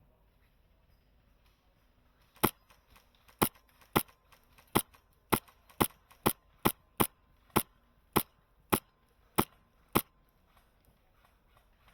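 HPA-powered airsoft rifle (Wolverine MTW M4) firing about fourteen single shots in quick succession, roughly two a second, starting about two and a half seconds in: sharp, loud clacks.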